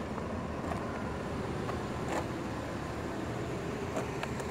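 Chevrolet Tahoe's 6.2-liter V8 idling: a steady low rumble, with a few faint clicks about two and four seconds in.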